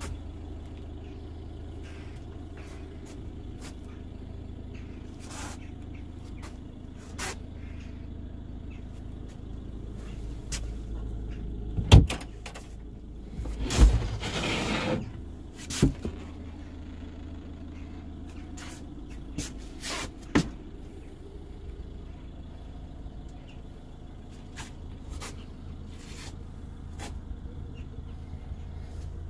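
A few sharp knocks and thuds from the van's plywood storage boxes, the loudest about twelve seconds in, and a plywood drawer under the bed sliding open around fourteen seconds in, over a steady low hum.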